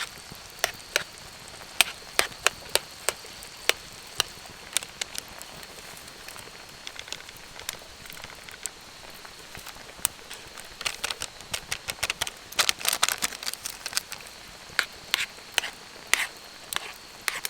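Wood campfire crackling: irregular sharp pops and snaps, coming thickest in a busy run after about eleven seconds. A thin steady high tone sounds underneath throughout.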